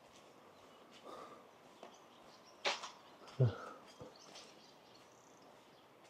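Quiet outdoor ambience with a few short, faint animal calls scattered through it; one, about three and a half seconds in, drops steeply in pitch.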